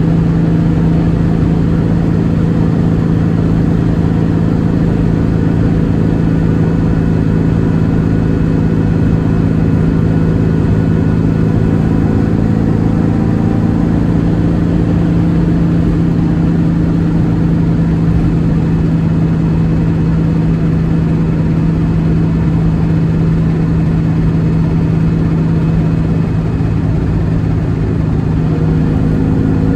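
1958 Volkswagen Beetle's air-cooled flat-four engine running at a steady speed, its tone shifting slightly near the end.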